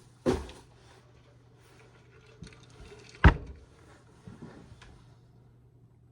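Things being handled and set down: two sharp knocks about three seconds apart, the second the louder, with lighter bumps and rustling between and after them.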